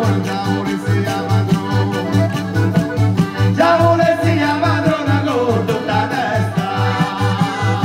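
Live folk dance music: accordion and acoustic guitar playing a lively tune over a steady, even beat, with a melody line above that slides between notes.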